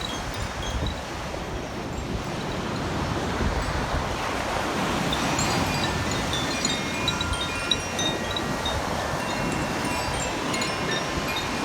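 Koshi chimes, tuned metal rods struck by a clapper inside a bamboo tube, tinkling in scattered ringing notes that begin a few seconds in, over a steady rush of surf and wind noise on the microphone.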